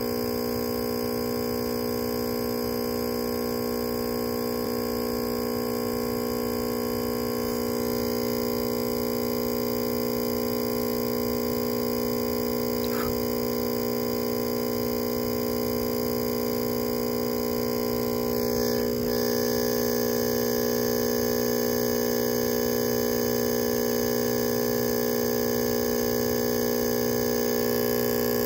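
Steady electrical hum: a constant, unwavering drone of several tones that does not change in level.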